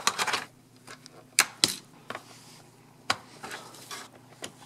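Thin polycarbonate body shell of a 1/12 scale pan car being handled and pressed down onto the chassis: a rustle, then a handful of sharp plastic clicks spread over a few seconds.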